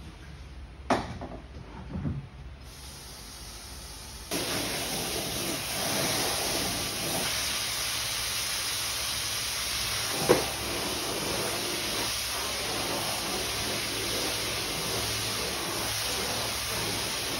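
Water spraying from a hose wand onto an area rug: a steady hiss that starts about four seconds in and holds on. Two short knocks come before the spray starts, and one sharp knock comes partway through.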